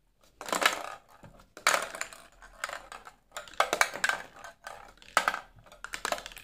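Small plastic balls rolling and clattering across a stainless steel tray as it is tilted and jiggled, in a run of short rattling bursts with brief pauses between them.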